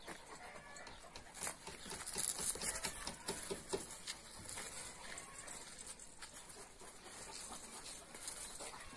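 Metal chain dog leads clinking and footsteps on paving stones as two large dogs are walked, with a cluster of clicks and rattles from about one and a half to four seconds in.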